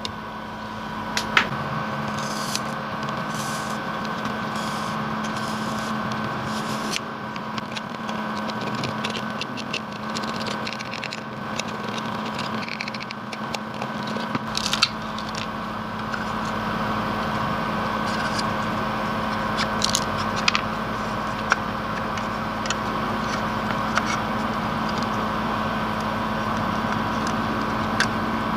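Scattered light clicks and scrapes, as of hand tools working on a plastic speaker case, over a steady electrical hum with a few fixed tones.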